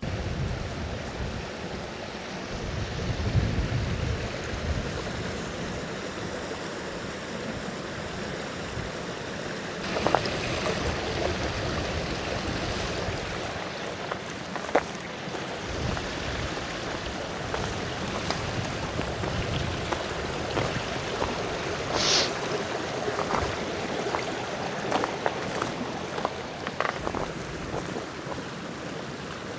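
Steady rushing outdoor noise with wind buffeting the microphone in the first few seconds, and scattered short clicks and knocks, the sharpest about 22 seconds in.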